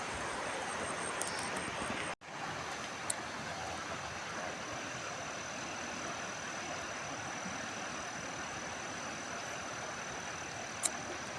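Steady rush of a fast-flowing mountain river, broken by a brief dropout about two seconds in, with a sharp click shortly after the dropout and another near the end.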